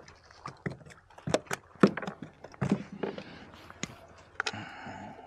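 Irregular knocks, taps and clatter of fishing tackle and a just-landed crappie against the plastic fishing kayak as the fish is brought aboard and unhooked, with a brief rustling scrape near the end.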